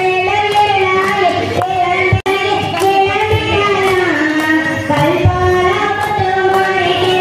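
A devotional song in a high voice with accompaniment, sung in long held notes over a steady beat of sharp ticks; the sound cuts out for an instant about two seconds in.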